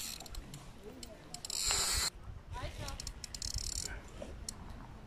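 Carp fishing reel ticking and whirring in two short spells, about a second and a half in and again near three and a half seconds, while a hooked fish is played on the bent rod.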